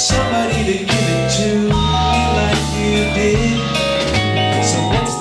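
A live band playing: long held bass notes that change about once a second, with guitar and other melodic lines above them and drums and cymbals keeping time.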